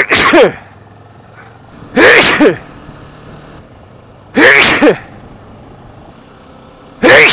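A man sneezing loudly four times in a row, about two to two and a half seconds apart, from hay fever and a cold.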